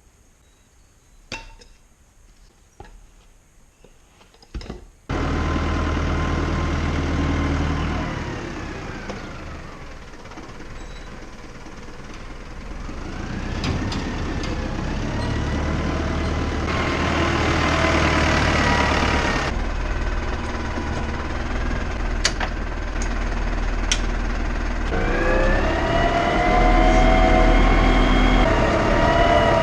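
A few faint clicks, then from about five seconds in a tractor engine running loud, its revs rising and falling, with a whine climbing near the end.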